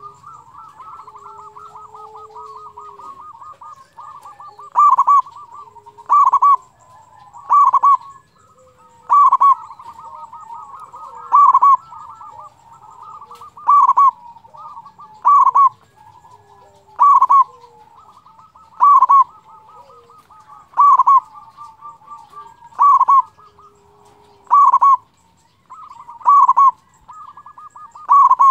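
Zebra dove (perkutut) singing. Loud cooing phrases repeat about every one and a half to two seconds, starting about five seconds in, over a continuous fast trilling chatter.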